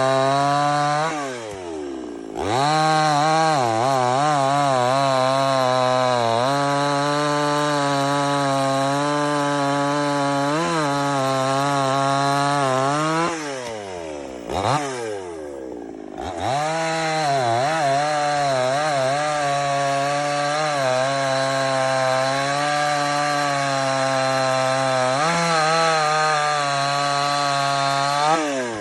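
Chinese-made chainsaw running at high revs, its pitch wavering. Twice the revs fall away and climb back up, about two seconds in and again around fifteen seconds.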